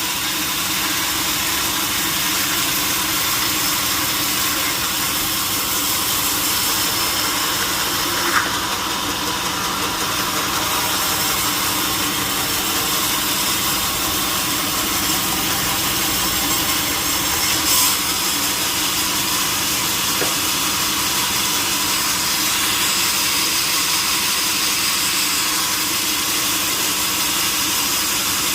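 Sawmill saw running steadily as it cuts through a log, with a sharp click about eight seconds in and a brief louder burst near the end of the middle.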